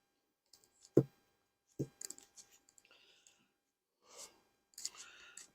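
Wooden beehive parts handled during a hive inspection: two sharp knocks about a second apart, then light scraping and rustling.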